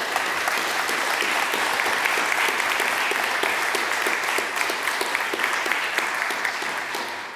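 Audience applauding, a steady wash of many hands clapping that starts to die away near the end.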